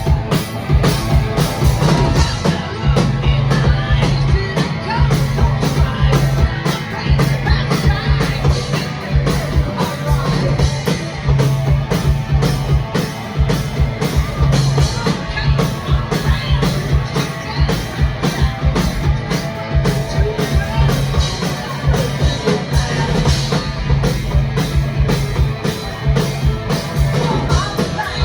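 Live heavy metal band playing loudly: driving drums with electric guitar and bass, and some singing.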